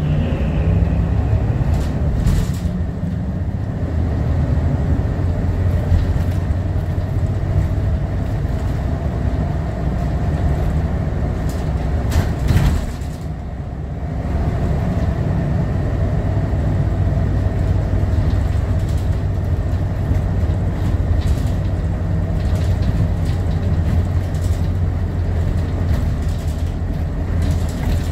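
Scania L94UB bus's rear-mounted diesel engine and ZF Ecomat automatic transmission running under way, heard from inside the passenger cabin as a steady drone. About halfway through there is a brief knock and the engine note drops for a moment before picking up again.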